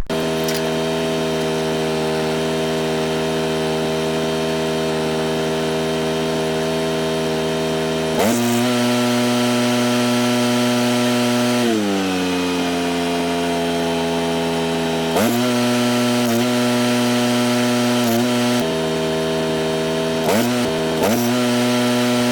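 An engine running steadily. Its speed steps up about eight seconds in, slides back down a few seconds later, then rises and falls again several times.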